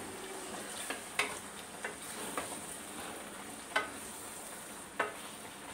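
Chicken and milk gravy sizzling in a pan over a high gas flame while it is stirred, with a utensil knocking against the pan in about six sharp, separate clicks.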